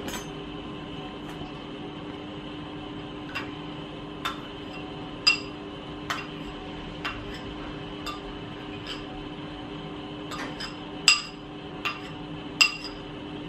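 A spoon clinking and tapping against glass bowls as ingredients are scraped out of a small glass bowl into a large glass mixing bowl. There are about a dozen sharp, ringing clinks at irregular intervals, the loudest about five seconds in and near the end, over a steady low hum.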